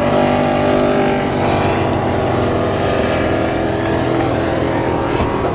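MotoGP racing motorcycle engine running as the bike rides past on the circuit, a steady engine drone.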